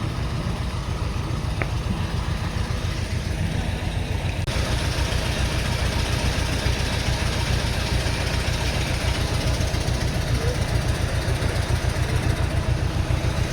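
A heavy diesel engine idling steadily, a low, fast-pulsing rumble, with a broader hiss swelling about four and a half seconds in.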